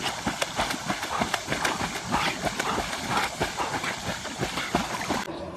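Rapid, irregular clattering of an animal's feet on a hard surface, many knocks a second, stopping abruptly near the end.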